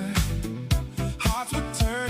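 Background music with a steady beat: a funk or soul track with drums and a wavering melody line.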